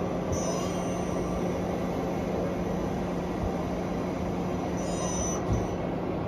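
CNC lathe running under power: a steady machine hum with a high whine that comes and goes twice, and a small knock near the end.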